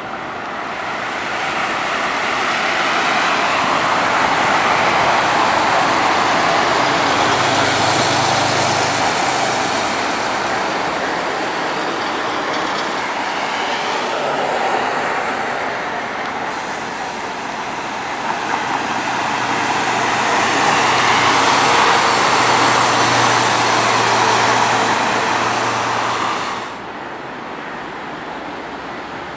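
Mercedes-Benz Citaro city buses driving past, their engines and tyres swelling up loud twice and easing off in between. The sound drops off suddenly near the end.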